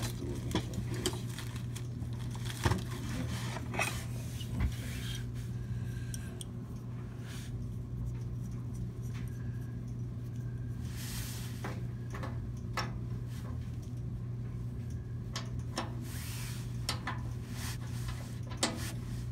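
Steel wrenches clicking and scraping against the blower wheel's hub and shaft as it is worked loose. Scattered single metallic clicks and a few short scrapes sound over a steady low hum.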